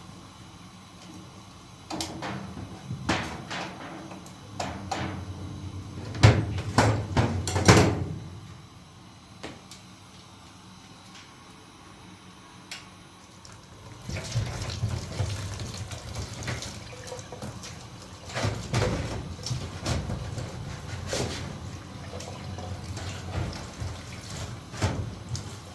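A run of sharp knocks and clatter, then after a quieter spell water running steadily, as from a tap, with further knocks over it.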